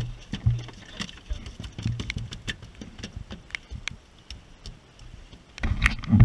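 A landed yellowtail kingfish knocking and thumping on a carpeted boat deck as it is held down and handled, with scattered sharp clicks. A cluster of louder thumps comes near the end.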